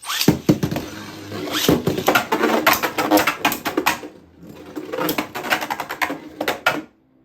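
Plastic-and-metal Beyblade Burst tops spinning and clashing in a plastic stadium: rapid clicking and rattling hits, easing off briefly about four seconds in, then picking up again before stopping suddenly near the end.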